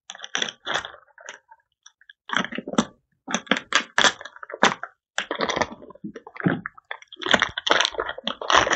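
Clear plastic wrapping crinkling and crackling irregularly as it is handled and pulled at, with a short pause about two seconds in.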